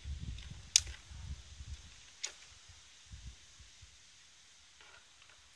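Wind rumbling on the microphone, with two sharp clicks about a second and a half apart as the metal juicer and pan are handled.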